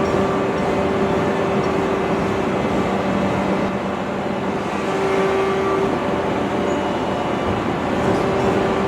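Steady din of heavy forging-shop machinery, with a low hum that swells and fades a few times.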